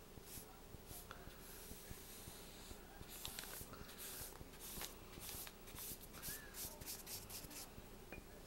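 Watercolor paintbrush brushed across a paper page, faint: a few long swishes at first, then a run of quick short strokes in the second half.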